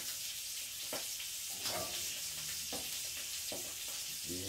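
Trout fillet frying skin-side down in a skillet, a steady sizzle.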